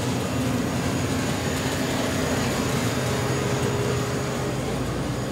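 Steady mechanical hum of refrigerated display coolers in a grocery store, a low even drone with no breaks.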